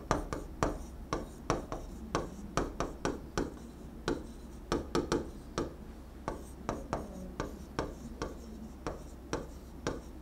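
Stylus tapping and scratching on the glass face of an interactive touchscreen board as letters are handwritten: an irregular run of sharp ticks, about two to three a second.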